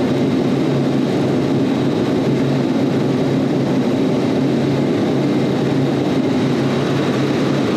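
Steady, loud hum of a commercial refrigeration rack's running semi-hermetic compressors and condenser fans, unchanging throughout. The compressor under test is running with almost no oil pressure differential.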